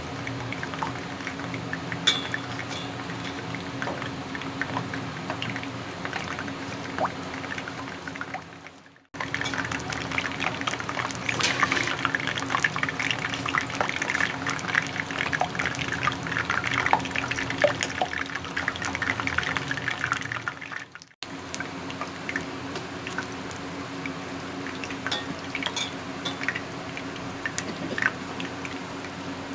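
Ghee being poured into a pan and heating, with a denser spell of crackling in the middle and a steady low hum throughout. The sound cuts off abruptly twice.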